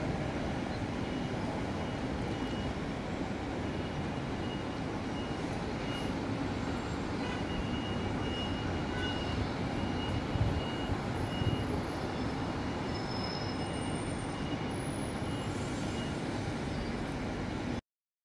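Steady outdoor city background: a low rumble of traffic, with a faint thin tone held throughout and a few short high tones near the end.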